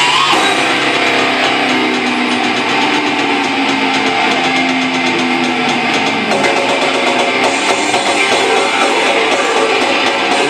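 Loud live rock band: electric guitar over drums. Held guitar notes ring through the first six seconds, then the playing changes.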